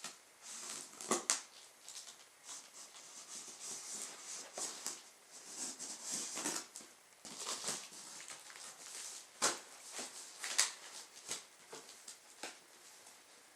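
Knife cutting through packing tape and cardboard on a shipping box: irregular scratchy scraping and tearing strokes, with a few sharp clicks and knocks.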